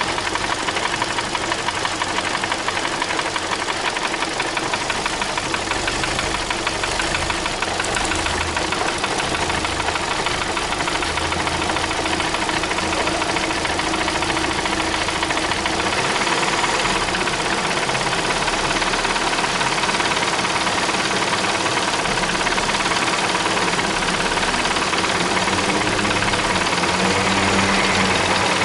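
Car engine idling with a rapid, steady ticking or clicking from the engine.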